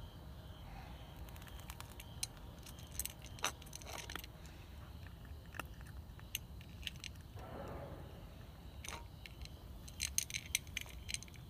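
Cats eating from a ceramic bowl: sharp clicks and crunches of chewing and of food and teeth knocking against the bowl, in clusters about two seconds in and again near the end.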